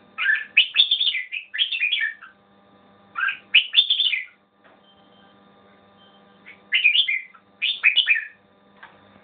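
Caged red-whiskered bulbul singing: quick, chirpy warbled phrases in three bursts with short pauses between. A faint steady hum runs underneath.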